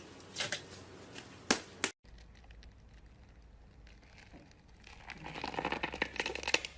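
Slime being squeezed and kneaded by hand: a few sharp pops in the first two seconds, a brief dropout, then a quiet stretch that builds into dense crackling from about five seconds in.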